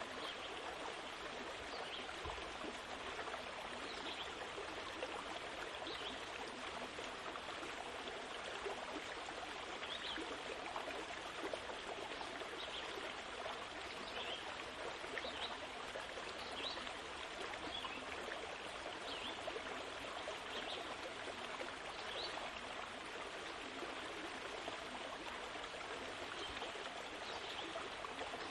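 Steady running water like a flowing stream, with faint short high chirps every second or two.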